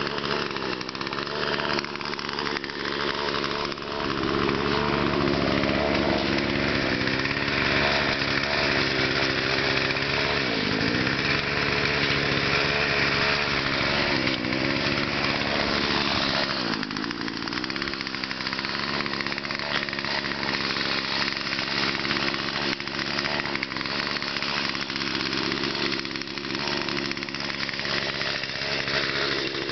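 Small 18-inch two-stroke chainsaw running continuously, first at lower revs, then held at high revs cutting into a large red oak log. The engine speed dips briefly twice, about a third of the way in and again just past halfway.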